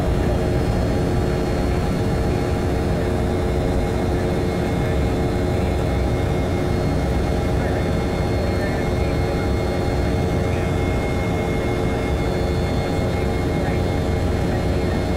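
Steady noise of an airliner's jet engines and rushing air inside the passenger cabin during the climb after takeoff, with several steady humming tones over the noise.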